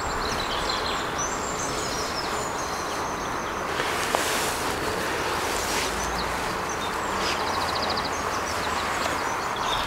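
Outdoor ambience: a steady background noise with songbirds chirping and trilling over it, including one quick trill about seven seconds in.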